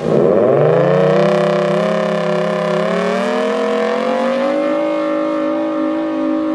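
Federal Signal Thunderbolt 1003 outdoor warning siren starting suddenly and winding up: its pitch climbs quickly in the first second, keeps rising slowly, and settles into a steady wail near the end. The siren has long been in poor condition ("quite sick") but still works.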